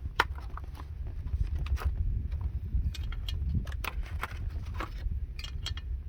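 Scattered, irregular clicks and knocks of work being handled, over a steady low rumble.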